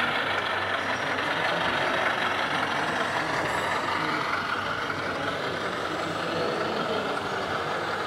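Steady simulated truck engine sound from a scale RC Scania 141 tractor unit as it drives slowly, hauling a container trailer.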